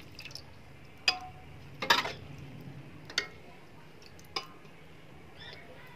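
Metal ladle clinking and knocking against a large metal cooking pot about five times, spaced a second or so apart, as chicken curry is spooned onto a layer of rice.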